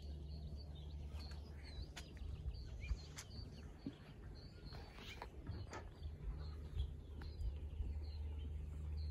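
Small birds chirping again and again in short, high notes, over a steady low rumble.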